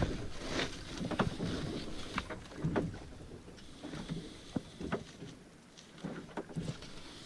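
Scattered light knocks and handling noises from a groundbait feeder being filled by hand with chum from a bucket.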